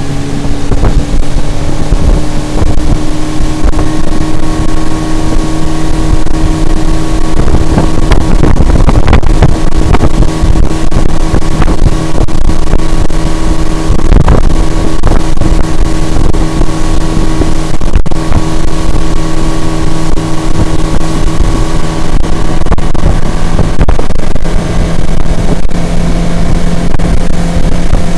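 50 HP Mercury CommandThrust four-stroke outboard driving a small powerboat at speed, heard from on board with wind and water noise underneath. Its pitch rises slightly at the start, then the engine holds a steady note.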